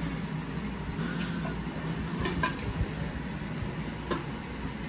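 Puppies scuffling and wrestling on a plastic slatted kennel floor, with a few sharp taps and clicks from paws and bodies, over a steady low hum.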